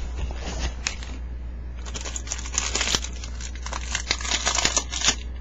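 Rustling and crackling handling noise of a webcam being moved about, pressed against clothing, over a steady low hum.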